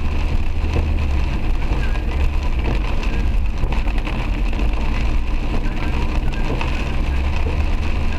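Car driving in heavy rain, heard from inside the cabin: a steady low rumble of engine and tyres on the wet road, with rain hitting the car and windscreen.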